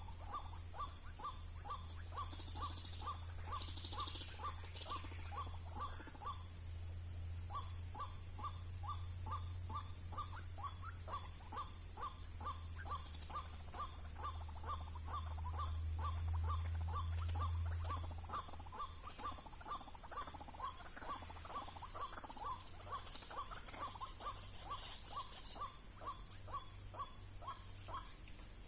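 White-breasted waterhen giving its monotonous call: one short note repeated evenly about two to three times a second, with one brief pause. Under it run a steady high insect drone and a low hum that drops away about two-thirds of the way through.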